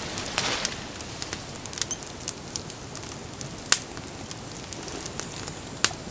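Wood campfire crackling, with scattered sharp pops over a low hiss; the loudest pop comes a little past halfway.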